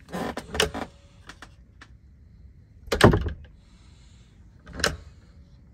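Loft door being worked open and shut: a clatter of latch and handle at the start, the door shutting with a sharp clunk about three seconds in, and a lighter knock near the end. The door has just been adjusted on its hinges and its latch chopped in, so it now shuts smoothly.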